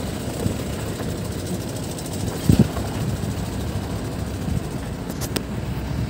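Steady low rumble of a vehicle's engine and road noise, with a brief louder bump about two and a half seconds in.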